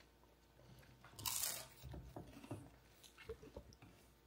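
A child biting into a slice of crisp avocado toast with one loud crunch about a second in, then chewing it with smaller, irregular crunches.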